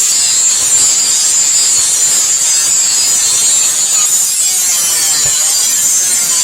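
Power grinder grinding the spring-steel knife blank, a steady, loud, high hiss of abrasive on steel with no hammer blows.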